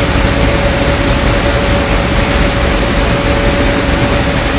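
Rotary drum dryer running while it dries palm sawdust, its drum turning with the sawdust tumbling inside. A loud, steady machine noise with a constant hum.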